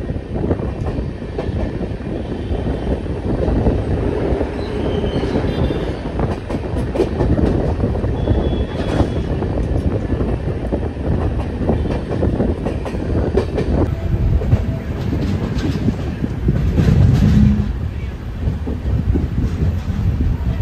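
Passenger train coaches running along the track, heard from an open doorway: a steady low rumble of wheels on rail with irregular clickety-clack from the rail joints. A louder stretch comes about three-quarters of the way through.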